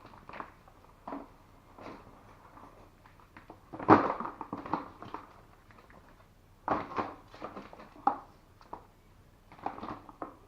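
Irregular knocks, clatters and rustling from handling stripped cable scraps, the cut-off plastic insulation being dropped into a bucket. The loudest knock comes about four seconds in, with further bursts of clatter later.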